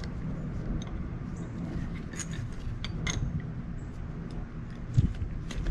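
A few sharp metallic clicks and clinks, spaced a second or so apart, from a hand wrench working the nut on the rod end of a removed shock absorber, over a low steady rumble.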